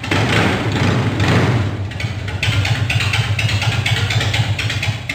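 Motorcycle engine running just after being started, idling with a steady pulsing beat; it is louder for the first second and a half.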